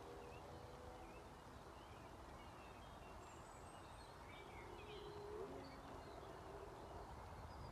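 Faint outdoor ambience: a steady low background hum with distant small birds chirping now and then.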